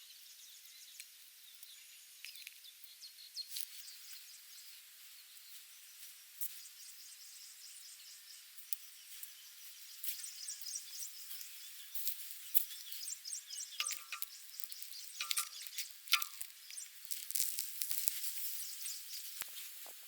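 Outdoor ambience of light, irregular crackles and clicks over a faint hiss, with three short bird calls about two-thirds of the way through.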